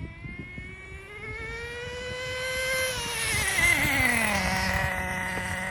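Small two-stroke nitro engine of a 1/10 Team Associated NTC3 RC touring car revving up for about three seconds, then dropping back to a steady idle. No gear change is heard as it revs, which the owner takes to mean the two-speed transmission is not shifting and may be stuck in second gear.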